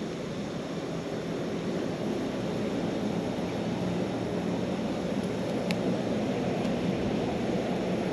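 Steady low rumble with a faint hum, and one sharp pop about six seconds in, as from burning wood in a small campfire grill.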